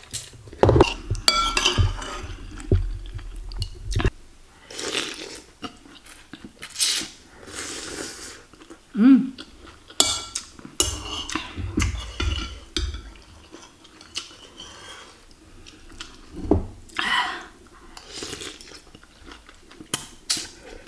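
Close-up eating sounds: noodles and broth slurped off a metal spoon in repeated short bursts, chewing, and the spoon clinking against a ceramic bowl.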